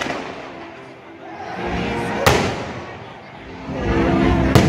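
Fireworks exploding overhead: two sharp bangs, one about two seconds in and one near the end, each trailing off in an echo, with voices between them.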